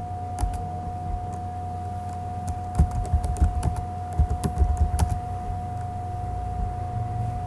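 Keystrokes on a computer keyboard, an irregular run of clicks that is busiest in the middle, over a steady electrical hum.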